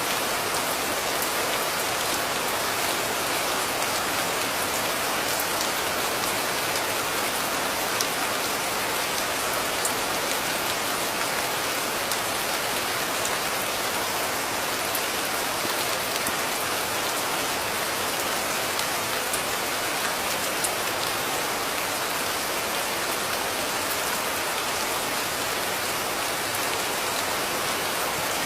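Steady, heavy rain: an even hiss with a sharper drop tick now and then.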